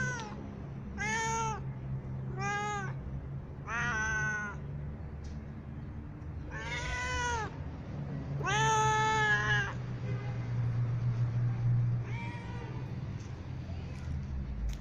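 A white domestic cat meowing repeatedly: five drawn-out meows, each rising then falling in pitch, and a fainter sixth a few seconds later. The meows are the cat begging for food. A steady low hum runs underneath.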